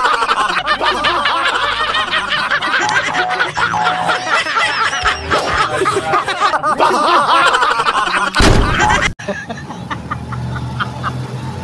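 Laughter sound effect: high-pitched shrieking, cackling laughter, repeated over and over. Near the end comes a short loud crash-like burst, then it cuts off abruptly to a low steady rumble.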